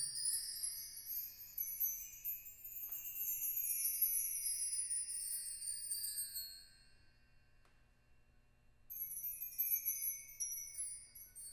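Shimmering high metallic chimes from a percussion ensemble, many strokes overlapping and drifting slowly downward. They die away about seven seconds in and start again a couple of seconds later.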